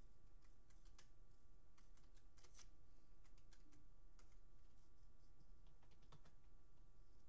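Faint, irregular light ticks of a pen tip tapping and scratching on paper as short strokes are drawn, over a low steady hum.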